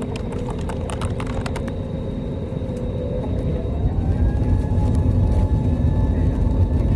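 A vehicle running with a steady low rumble, its engine tone rising about halfway through as it picks up speed, with a few sharp clicks in the first two seconds.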